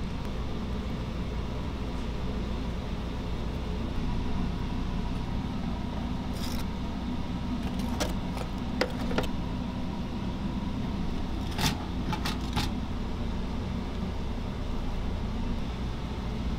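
Steady low hum of kitchen machinery, with a few short metallic clinks of utensils such as a spoon or tongs against containers, a couple about halfway through and a small cluster a few seconds later.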